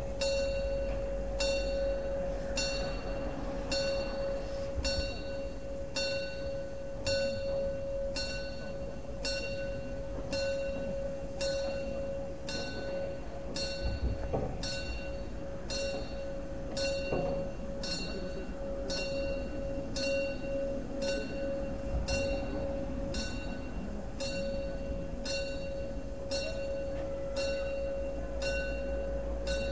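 A bell struck in a steady, even rhythm, about three strikes every two seconds, over a continuous steady tone.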